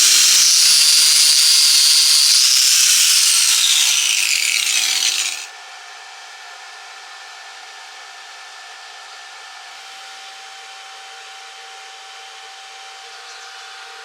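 Angle grinder cutting or grinding metal, its high whine sinking in pitch under load before it stops about five seconds in. A faint steady hum follows.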